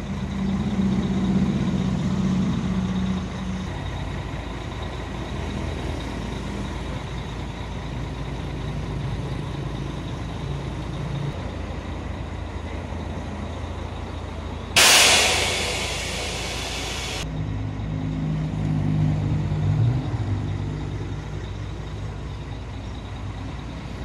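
Mercedes-Benz coach's engine running under way, heard from on board, its drone rising and falling with the throttle. About 15 seconds in, a loud hiss of compressed air from the air brakes bursts in and cuts off sharply after about two seconds.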